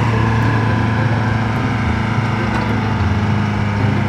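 Engine running steadily, a low, even hum like a heavy vehicle idling.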